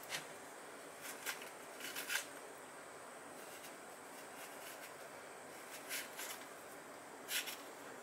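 Metal spoon scraping the seeds and white pith out of halved bitter melon (goya): a few short scratchy scrapes, some in quick pairs, with pauses between.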